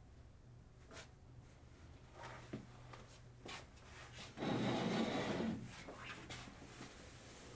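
Quiet handling sounds in a small room: scattered soft clicks and knocks, and a louder rubbing, scraping sound lasting about a second, roughly four and a half seconds in.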